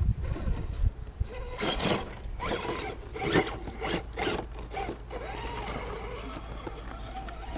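An Axial SCX10 scale RC crawler's electric motor and gear drivetrain whirring in short, irregular bursts with clicks, as the truck is driven in stops and starts; it settles to a quieter steady whir in the last couple of seconds.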